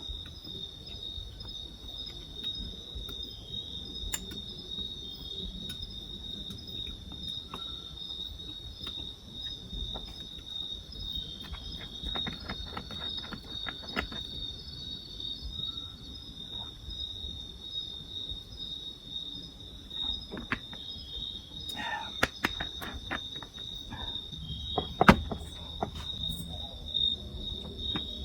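Forest insects keep up a steady, high-pitched trill. Scattered light clicks and knocks sound over it, the loudest about 25 seconds in.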